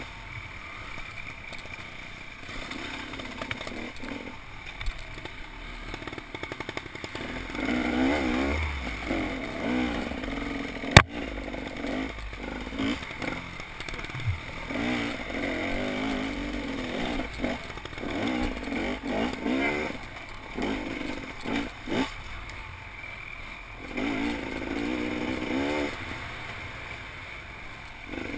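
Off-road motorcycle engine on a wooded trail, revving up and easing off again and again as the rider works the throttle, with chassis clatter over the rough ground. A single sharp knock about eleven seconds in is the loudest sound.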